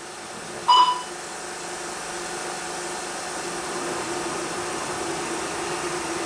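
Steady hiss and faint hum of a 16mm film soundtrack running over blank leader, with a short high beep about two-thirds of a second in.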